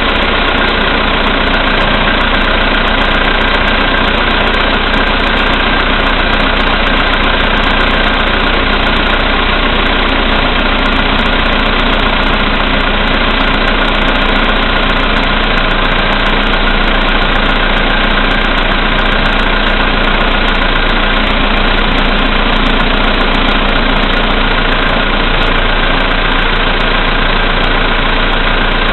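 Volkswagen Polo Sedan's CFNA 1.6-litre four-cylinder petrol engine idling steadily while still cold after a winter start, with a knock that the owner says grows louder as the lights and heated glass are switched on to load the engine.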